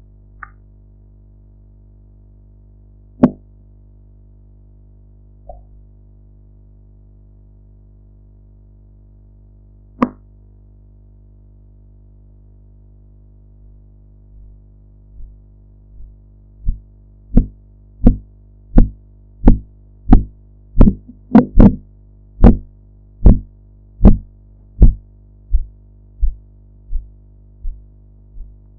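Korotkoff sounds through an amplified stethoscope over a steady low hum. Two isolated knocks come about three and ten seconds in. Then, about seventeen seconds in, a regular series of thumps begins at roughly three beats every two seconds; it grows louder and then fades away near the end. The first thump marks the systolic pressure and their fading out the diastolic.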